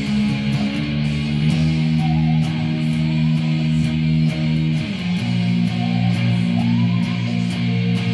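Band music from a power trio rehearsing a worship song: electric guitar chords over bass. The chords are held and change twice, with a steady beat of short high hits about twice a second.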